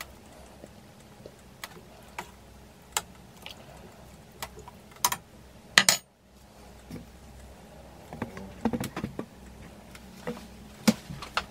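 Scattered light clicks and clinks of a metal spoon and chunks of daikon against a stainless steel saucepan of broth, the sharpest knock about halfway, over a faint low hum.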